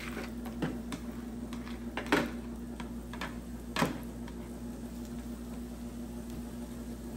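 A few sharp metal clicks, the loudest about two seconds in and again near four seconds, over a steady low hum: a spatula tapping and scraping on the steel plate of a Blackstone electric tabletop griddle as food fries.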